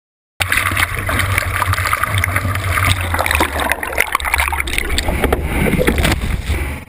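Breaking-wave whitewater heard underwater through a camera's waterproof housing: a steady low rumble with dense crackling of churning bubbles. It starts suddenly just after the start and cuts off abruptly at the end.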